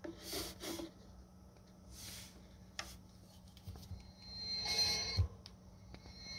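Stylus riding the lead-in groove of a vinyl record on a turntable: quiet surface noise with several soft swishing rubs over a low steady hum. The longest rub comes about three-quarters of the way through.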